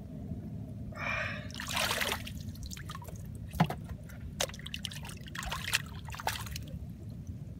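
Hands groping and sloshing in a shallow pool of muddy water while feeling for fish, with scattered splashes and drips.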